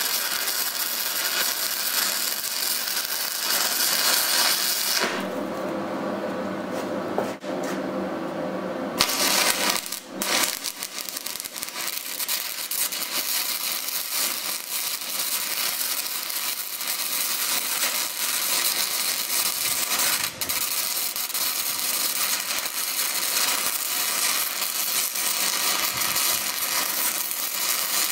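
Stick (SMAW) welding arc crackling and sputtering steadily as a rod burns. About five seconds in, the crackle thins for around four seconds, then comes back at full strength.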